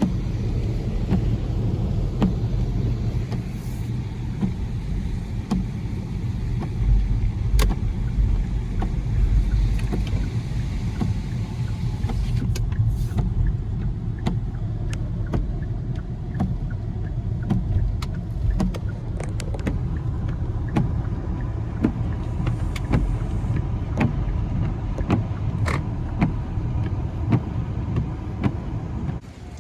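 Car driving, heard from inside the cabin: a steady low engine and road rumble with scattered light clicks and knocks, dropping away suddenly near the end.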